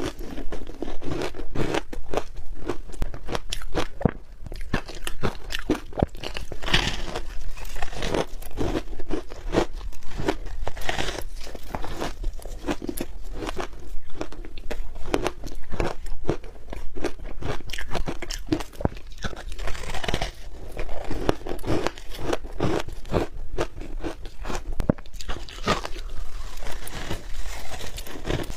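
Close-miked biting and chewing of crunchy ice: a dense, continuous run of crackling crunches.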